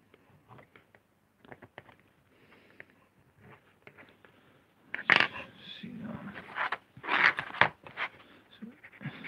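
Faint scratching and light ticks of hands and a pencil working over a lino block. Between about five and eight seconds in come several louder scraping, rustling bursts as the block and its board are handled.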